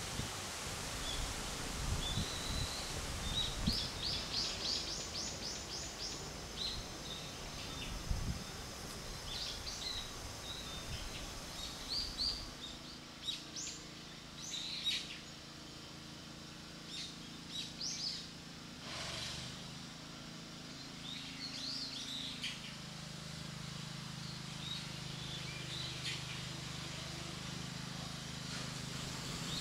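Small birds chirping and calling again and again, with one quick run of repeated high notes a few seconds in. Wind rumbles on the microphone for the first part, and a low steady hum sets in about halfway through.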